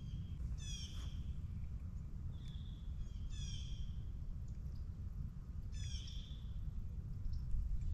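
A bird calling several times, short calls a couple of seconds apart, over a steady low rumble of outdoor noise.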